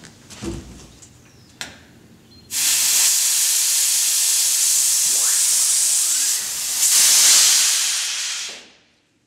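Compressed air hissing through the air jack inlet of a Nissan S15 as its built-in pneumatic jacks are worked. A few short knocks come first. A loud, steady hiss then starts about two and a half seconds in, swells near the end and dies away quickly.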